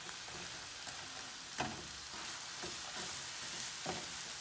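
Minced meat, peas and sweetcorn sizzling steadily in a frying pan, with a wooden spoon stirring and scraping against the pan a few times.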